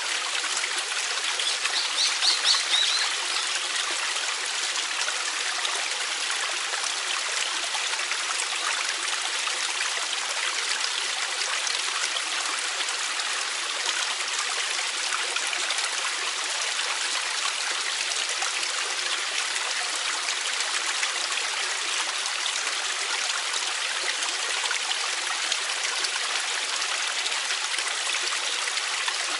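Mountain valley stream flowing steadily. About two seconds in, a bird gives a short run of high chirps.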